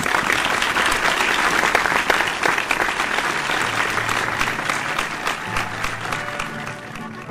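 Audience applause: a dense patter of many hands clapping that starts suddenly and slowly dies down toward the end.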